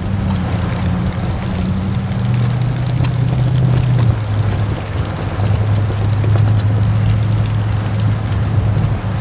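Jeep engine running as it drives along a wet trail, a steady low drone over an even background hiss. The engine note drops in steps about two and four seconds in.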